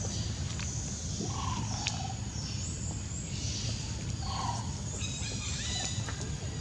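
Animal calls: a few short calls over high chirping, with a steady low hum underneath.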